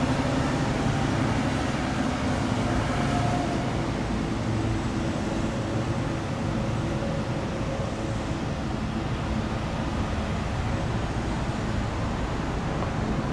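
Steady road-traffic noise: engine hum and tyre noise as an ambulance drives through an intersection and away.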